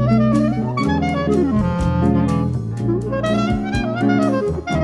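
Small-group jazz recording: a clarinet plays a running melodic line over walking double bass, piano chords and drums with steady cymbal taps.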